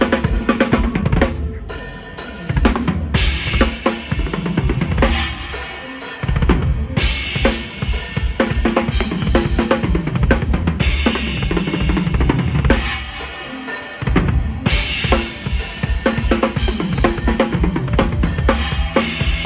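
Drum kit played live in a mor lam band, heard close from the drummer's position: driving kick drum, snare and rimshots, with cymbal crashes about every four seconds, over the rest of the band. The low end drops out briefly a few times, as at breaks and fills.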